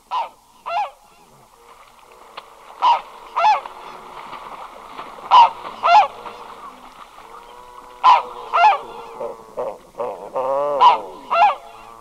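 Red-breasted goose calling close up: shrill two-note calls in pairs, about every two and a half seconds, with a quicker run of calls near the end. Fainter calls carry on in the background.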